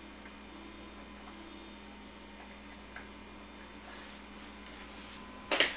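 Steady low electrical hum with faint handling of small parts as nuts are tightened by hand on a steel hemisphere assembly: a faint tick about three seconds in, and a short sharp clatter near the end.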